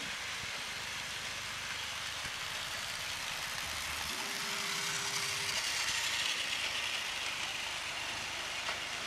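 Battery-powered toy trains running on plastic track: a steady whirring hiss of small motors and wheels that grows a little louder partway through.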